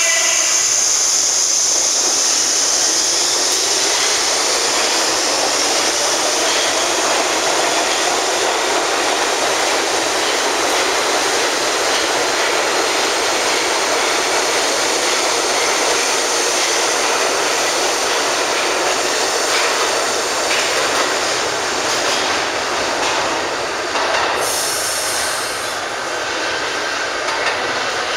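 New York City Subway Bombardier R62A train pulling out of a station. Its traction motors whine, rising in pitch as it picks up speed, then come the steady rush and clatter of the wheels on the rails as the cars pass. A brief high hiss sounds near the end.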